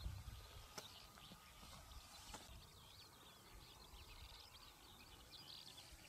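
Faint field ambience with many small birds chirping and twittering at high pitch throughout, over a low rumble in the first moment and a couple of soft ticks.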